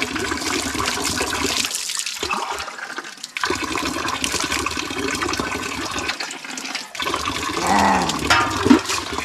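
Water splashing from an outdoor tap stream and from a steel tumbler poured over a child during a bath. A short voice comes in near the end.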